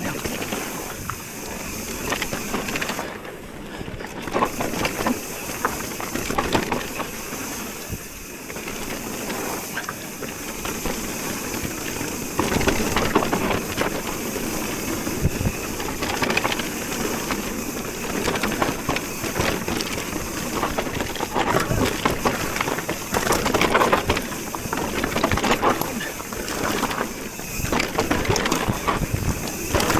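Mountain bike ridden down a dirt trail: tyres crunching over the ground and the bike rattling over bumps, heard as a steady rushing noise full of small knocks.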